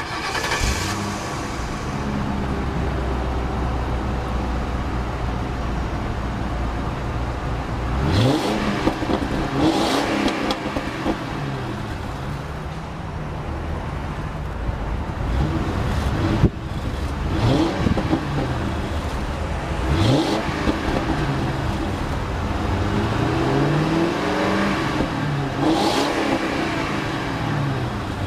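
The 4.6-litre V8 of a 2006 Ford Crown Victoria LX Sport starts, settles into a steady idle, then is revved again and again through the exhaust, its pitch climbing and falling with each blip. A single sharp knock comes about halfway through.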